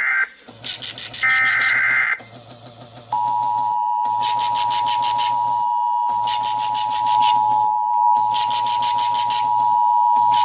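Emergency Alert System tones: a short burst of warbling SAME data ending the alert header, then about three seconds in the EAS two-tone attention signal starts and holds steady, announcing a special marine warning. A rhythmic high-pitched rasping of the decoder's printer runs in stretches alongside.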